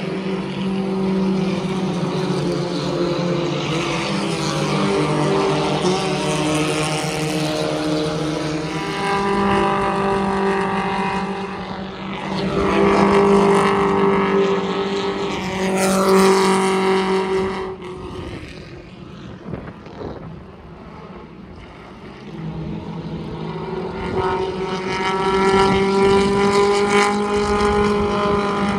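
Pure stock race car engines running at speed on the track, one car at a time, the sound swelling and falling in pitch as each car passes. The loudest passes come about halfway through, followed by a lull, then another car builds up near the end.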